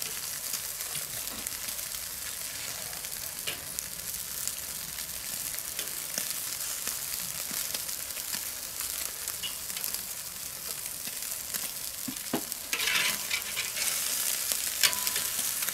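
Meat and red pepper pieces sizzling and crackling on the grate of a charcoal Weber kettle grill, with a few light clicks of metal tongs against the grate as the pieces are turned. The sizzle gets louder about thirteen seconds in.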